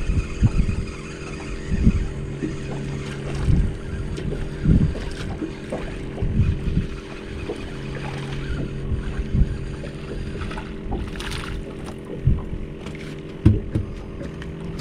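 A steady hum and wind buffeting the microphone on a small boat while a hooked speckled sea trout is reeled in and splashes at the surface beside the hull, with irregular low thumps.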